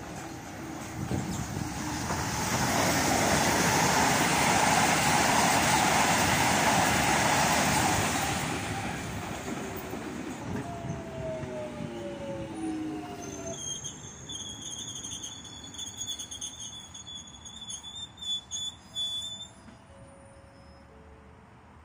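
London Underground Jubilee line 1996-stock train pulling into the platform and braking to a stop. A loud rush of rail noise lasts several seconds near the start, then a falling motor whine as it brakes, and a steady high-pitched whine as it creeps in and comes to rest.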